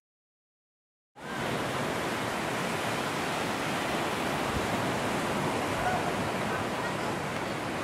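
Strong storm wind of a whirlwind, a steady rushing noise. The sound is cut out completely for about the first second, then the wind comes back in at once.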